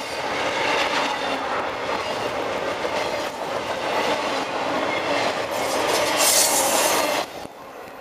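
Freight train's trailer-carrying flatcars rolling past on the rails, wheels clattering over the track. The noise turns harsher and higher-pitched near the end, then drops away suddenly about seven seconds in as the last car goes by.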